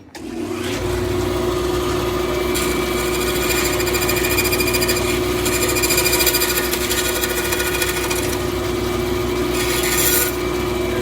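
Bandsaw starting up and running with a steady hum, cutting a small wooden glazing moulding freehand: a long cut from about two and a half seconds in to about eight seconds, then a shorter cut near the end.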